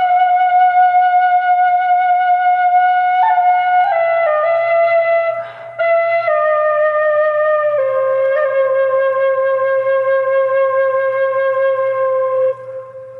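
Solo Irish flute playing a slow melody of long held notes that step gradually downward in pitch. There is a brief break for breath about five and a half seconds in, and the last note fades near the end.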